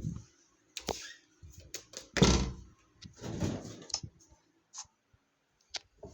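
Irregular clicks and knocks with a few short rustling thuds, the loudest about two seconds in.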